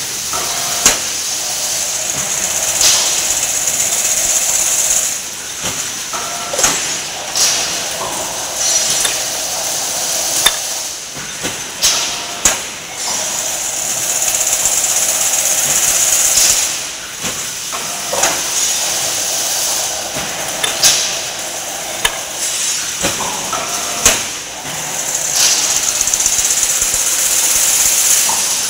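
Chain-link fencing machine running: a steady high hiss that swells and eases in a repeating cycle of roughly every eleven or twelve seconds, with sharp metallic knocks every few seconds.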